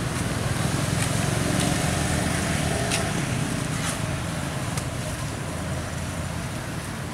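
Steady low background rumble with a few faint ticks.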